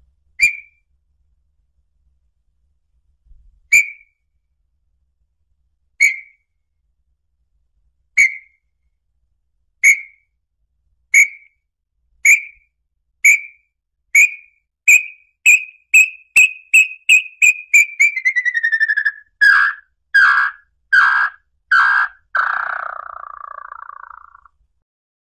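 Small-billed tinamou (inhambu-chororó) song: single clear whistles, a few seconds apart at first, that come faster and faster. The notes then slide lower in pitch and end in a few longer notes and a falling, rough trill.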